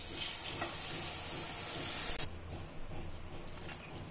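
Water poured from a steel tumbler into a hot kadai of fried masala and mutton, hissing and sizzling as it hits the hot pan. The hiss cuts off a little over two seconds in, leaving a quieter pour.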